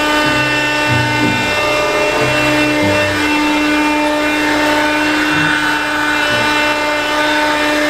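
Wheeled excavator's diesel engine and hydraulics running with a steady whine, the low engine note shifting in steps as the arm digs and swings soil into a dumper.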